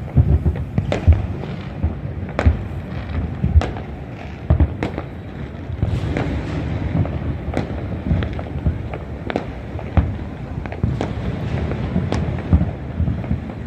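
Fireworks bursting across a city: many irregular sharp bangs, some nearer and louder than others, over a continuous low rumble and crackle of distant shells.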